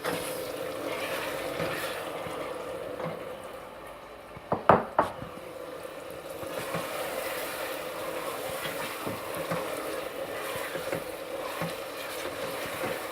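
Chicken frying in hot oil with ginger-garlic paste in a cooking pot: a steady sizzle with small crackles, and two sharp knocks close together about a third of the way in.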